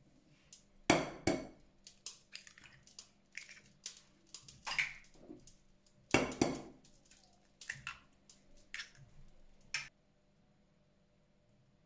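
Kitchen utensils and dishes knocking and clinking in irregular taps. There are two heavier thuds about a second in and another about six seconds in.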